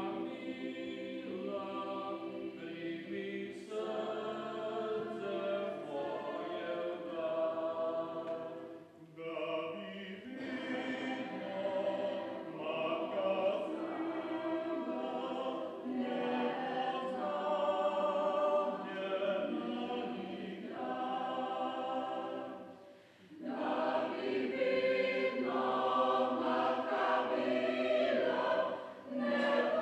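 Mixed choir of men's and women's voices singing in parts, unaccompanied. The singing breaks briefly between phrases about nine seconds in, again around 23 seconds, and near the end.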